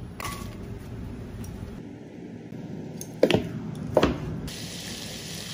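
Two sharp knife chops through cooked chicken breast onto a plastic cutting board, about three-quarters of a second apart, past the middle. Near the end a steady hiss of frying begins.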